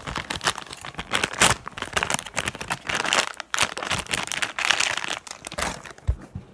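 Plastic toy packaging crinkling and rustling as it is handled, in dense, irregular crackles, with a low bump about six seconds in.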